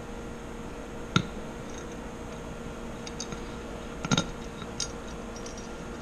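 Small metal clicks and taps from a washer being slid onto a rubber inner tube's valve stem inside an aluminium aircraft wheel half. There are two sharp clicks, about a second in and about four seconds in, over a faint steady hum.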